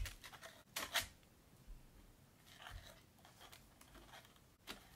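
Marshmallow Peeps being pulled apart and lifted out of their tray: a few short rustles and tearing scrapes, the loudest about a second in, and a click near the end.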